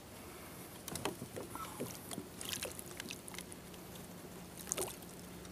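Scattered light clicks, knocks and small splashes as a plastic fish lip grip is handled over the water at a kayak's side, reaching for a fish held there.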